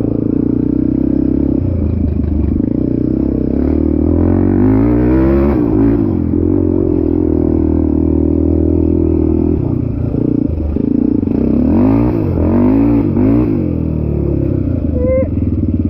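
ATV engine running under load, its pitch rising and falling as the throttle is worked, with clear rev-ups about four seconds in and again around twelve seconds in, over a rattling clatter.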